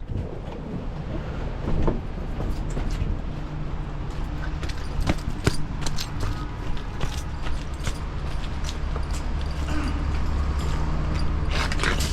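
A steady low mechanical hum, growing louder about seven seconds in, with scattered clicks and knocks over it.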